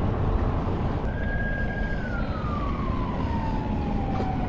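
A siren wail: one clear tone comes in about a second in, holds briefly, then slides slowly down in pitch, over the steady rumble of the boat's motor and the wind.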